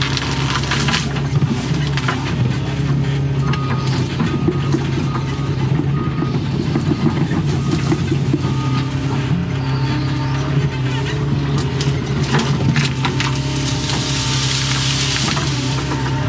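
Excavator's diesel engine running steadily under load, with scattered cracking and snapping of wood as trees and brush are broken. A brief rushing swish comes near the end.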